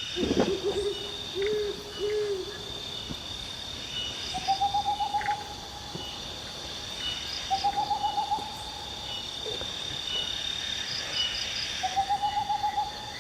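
An owl calling at night: a few low hoots in the first two seconds, then three quick trills of rapid pulses about four seconds apart. A steady high whine of insects runs underneath.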